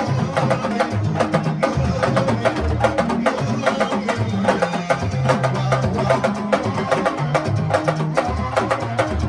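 Senegalese sabar drum ensemble playing a fast, dense rhythm: sharp stick-and-hand strikes on the drumheads over deep bass drum strokes.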